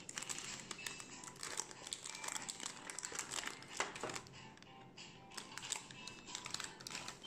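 Parchment baking paper and a thin aluminium foil loaf pan crinkling and crackling as a cake is lifted out of the pan by its paper lining, a dense run of irregular crackles. Soft background music plays underneath.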